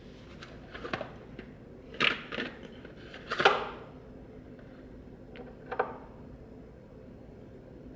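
A few scattered knocks and clatters of objects being handled, the loudest about two seconds and three and a half seconds in, with another near six seconds.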